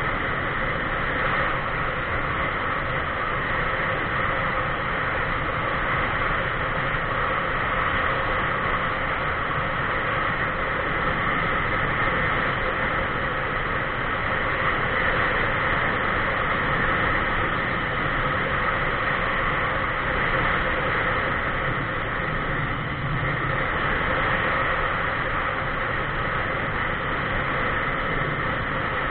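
Steady wind and road noise from a vehicle cruising at constant speed along a paved highway, heard on a low-mounted camera. A continuous rushing hiss with a faint steady hum, without changes or separate events.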